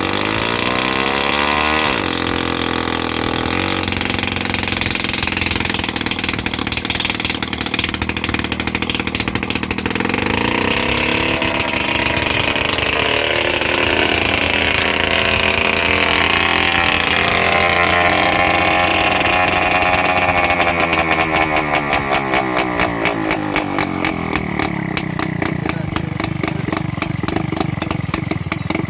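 TVS Super XL moped's small single-cylinder two-stroke engine running after a new magnet coil and a swapped spark plug, its pitch rising and falling as it is revved, then settling into a slow, even firing beat for the last several seconds.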